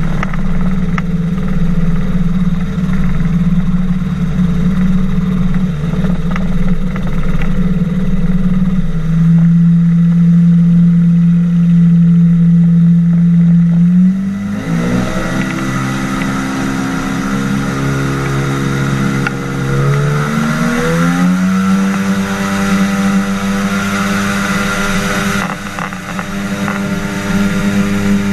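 Flying boat's propeller engine running steadily at high revs; about halfway through it is throttled back and its pitch drops, then it revs back up about seven seconds later.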